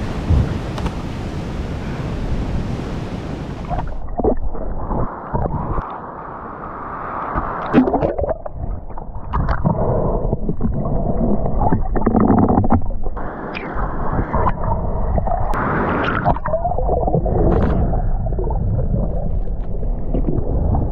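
Ocean surf with wind on the microphone at first. About four seconds in, it changes abruptly to the muffled sound of a camera underwater, as a spearfisher swims over a shallow reef. There is gurgling and churning water from waves breaking overhead, with scattered clicks and knocks.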